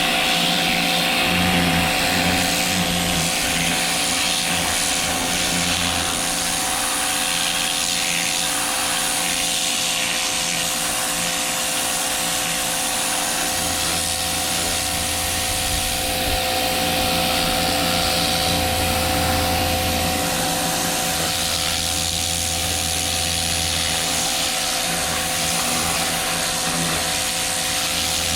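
Ryobi 2000 PSI electric pressure washer running steadily, its motor and pump humming under the hiss of water spraying from the turbo nozzle.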